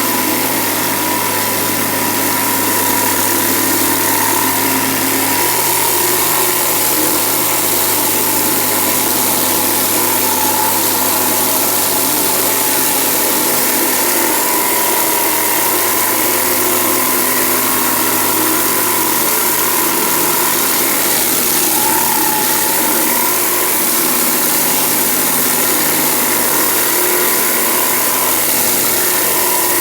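Pressure washer engine running steadily with the high-pressure water jet hissing as it rinses down the surface.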